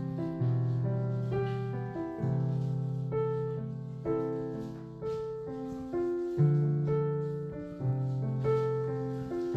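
Background piano music: a slow, gentle piece, notes struck about once a second and left to fade over low held bass notes.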